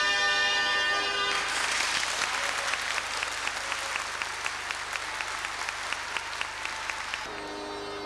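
Zampogna bagpipe and shawm music holding its chord, cut off about a second in, followed by audience applause with one clapper's claps standing out as an even beat. Near the end the applause stops and a held bagpipe drone sounds again.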